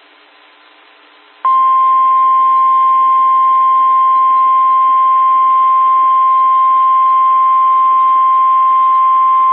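NOAA Weather Radio 1050 Hz warning alarm tone, sounded as the station's weekly tone alert test: one steady, loud tone coming on about a second and a half in, over radio hiss.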